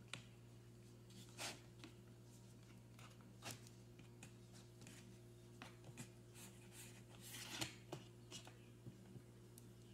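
Faint rustling and rubbing of wrapping paper being smoothed and pressed onto a glued cardboard box, with a few soft taps, over a steady low hum.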